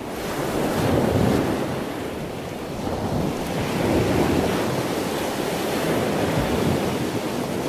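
Sea waves breaking and washing, the sound swelling and easing about every three to four seconds.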